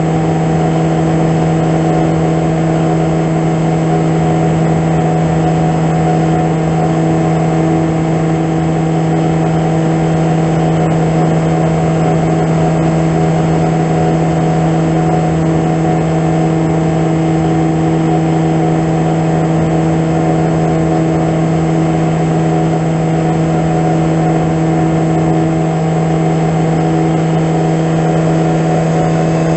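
Brushless electric motor and propeller of a BrotherHobby 3115 900kv-powered AR900 flying wing running at a steady cruise throttle: a constant, unchanging hum, heard from the plane's onboard camera.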